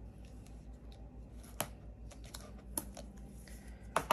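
A few faint, sharp clicks and paper handling as a hand presses a strip of double-sided tear-and-tape onto red cardstock.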